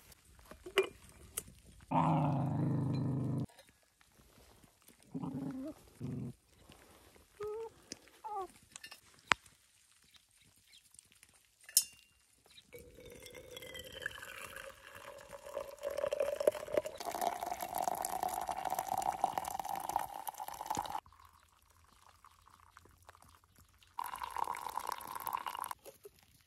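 A dog gives a few short vocal sounds about two seconds in and again several seconds later. Then hot water is poured from a camp kettle into a glass French press for about eight seconds, its pitch rising steadily as the press fills.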